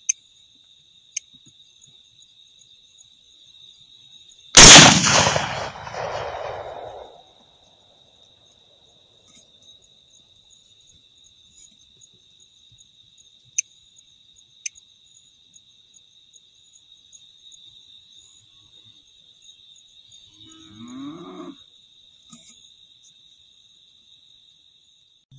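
A single rifle shot about four and a half seconds in, by far the loudest sound, its report rolling away over about two seconds, over a steady chorus of crickets. Near the end comes a short, low animal call that rises and then falls in pitch.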